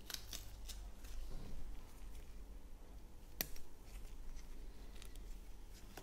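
Faint small clicks and scratches of a metal dental explorer probing composite cured in a plastic depth gauge, checking that it has hardened, with one sharper click about three and a half seconds in.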